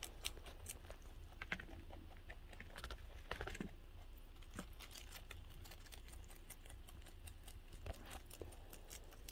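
A rabbit chewing crisp lettuce leaves: faint, quick, irregular crunching clicks.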